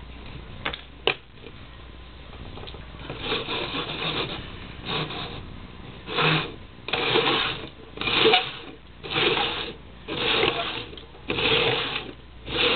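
Plastic party cups scraping across a wooden floor as they are slid around and shuffled: a run of rasping strokes about once a second, getting louder about halfway through, after a couple of light knocks near the start.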